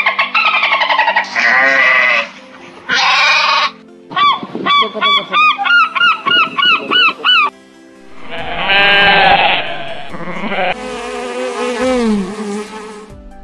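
A sequence of animal calls over light background music. First come dolphin squeaks and whistles in quick pulses. Next is a run of short gull calls, about four a second, and a swarm of honeybees buzzing steadily near the end.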